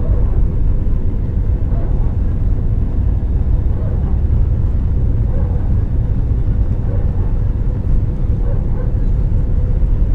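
Airbus A320 cabin noise: a steady, loud low rumble with a faint steady tone running above it.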